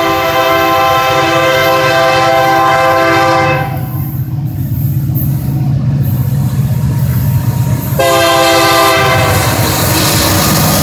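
Diesel freight locomotive's multi-chime air horn blowing a long warning blast at a grade crossing. The blast breaks off about three and a half seconds in, leaving the rumble of the approaching train, and a second blast begins about eight seconds in.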